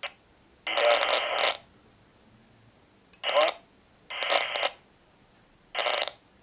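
Cheap walkie-talkie's loudspeaker relaying a distant voice transmission, thin and telephone-like, in four short bursts that start and stop abruptly with quiet gaps between, as during a range test.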